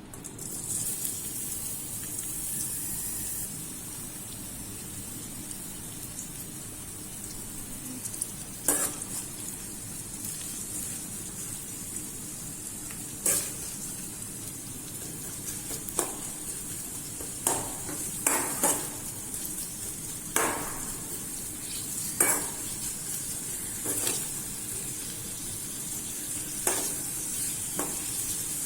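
Food frying in hot oil in a pan, a steady sizzle that starts suddenly, with a spatula scraping and knocking against the pan about a dozen times as it is stirred.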